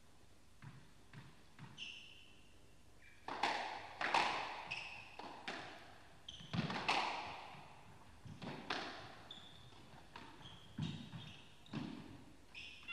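A squash rally: the ball is struck by rackets and smacks off the court walls in a run of sharp, echoing hits, starting about three seconds in and coming every half second to a second and a half. Short high squeaks, typical of court shoes on the floor, come between the hits.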